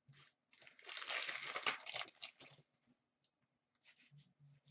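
Hands handling a stack of trading cards: a dense crinkly rustle lasting about two seconds, starting about half a second in, then a few faint light ticks near the end.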